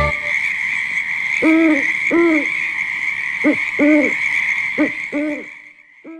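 Owl hooting sound effect: about seven short hoots, mostly in pairs, each rising then falling in pitch, over a steady high drone. All of it fades out near the end.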